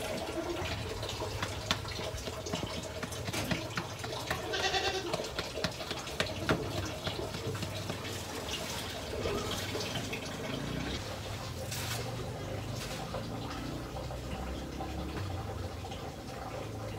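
A calf nosing and chewing through dry chopped fodder, with steady rustling and small crackles. A short animal call comes about four and a half seconds in.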